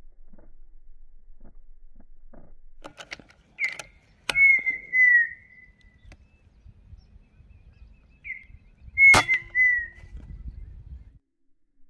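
A bird's whistled call, given twice about five seconds apart: each a short note and then a longer, slightly falling whistle. A sharp click comes at the start of each call, over a faint low rumble.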